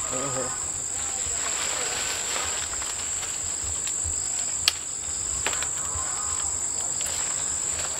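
Insect chorus in the trees, a steady high-pitched drone, with two sharp clicks about halfway through.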